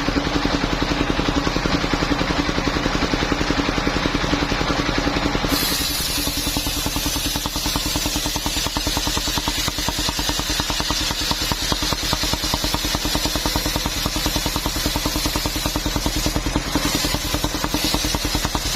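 Engine-driven mobile circular sawmill running steadily with an even, fast pulse; about five and a half seconds in the sound changes abruptly, taking on a high hiss.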